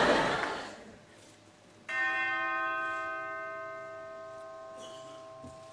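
A single bell struck once about two seconds in, its tone ringing on and slowly fading away. Before it, audience noise dies away into near silence.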